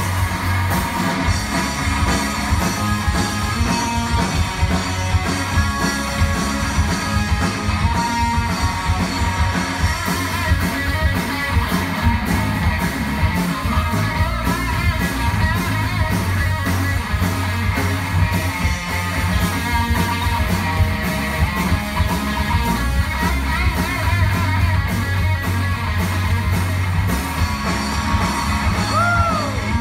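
Pop-punk rock band playing live: electric guitar, bass guitar and a drum kit, loud and continuous.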